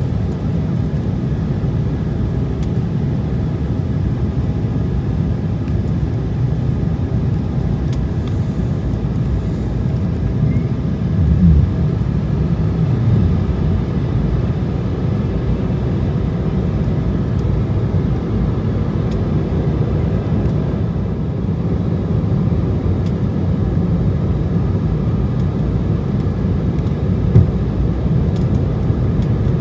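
Steady in-cabin noise of an Embraer 190 airliner in flight, heard beside the wing: a deep rumble of airflow and the underwing General Electric CF34 turbofans, with faint steady engine tones above it. A brief knock stands out near the end.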